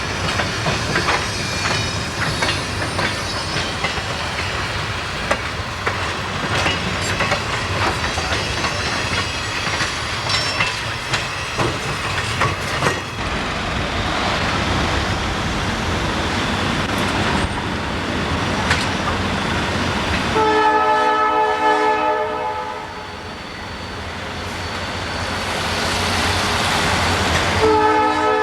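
Train rolling by, its wheels clicking over rail joints, then a locomotive horn sounds a long blast of several tones about two-thirds of the way through and starts another near the end.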